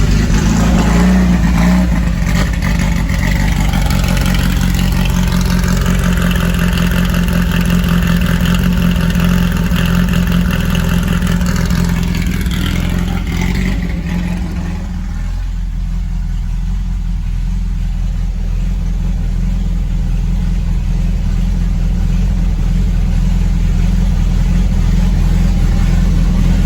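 Fuel-injected VW Beetle engine on a freshly tuned Holley EFI system, running steadily just after a start. About fourteen seconds in, the upper part of the sound eases off and the engine settles to a quieter, even idle. The owner says it runs great now that the rich condition has been tuned out.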